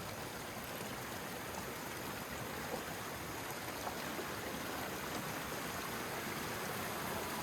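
Creek water running steadily over rocks, a constant rushing hiss.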